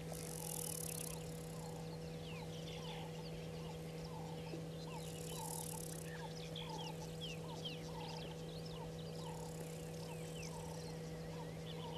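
Bush birds calling: many short high chirps and whistles, with one bird repeating a short low note about twice a second. Three short bursts of high buzzing hiss come and go, over a steady low hum.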